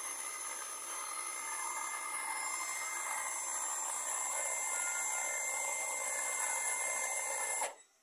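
Small electric motor of a homemade remote-controlled winch running steadily with a high whine as it lowers a hanging bird cage, cutting off suddenly near the end as the cage reaches the ground.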